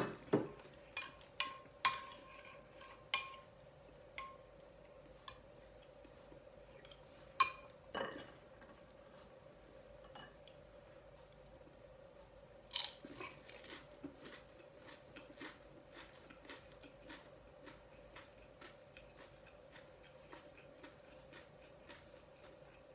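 A metal spoon clinking against a glass bowl of congee several times over the first eight seconds. About thirteen seconds in comes one louder crunch, then a run of small crunches as a crisp fried spring roll is chewed. A faint steady hum lies underneath.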